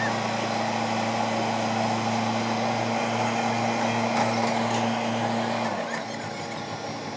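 Mini excavator's diesel engine running steadily as it digs, a low even hum that drops away about six seconds in.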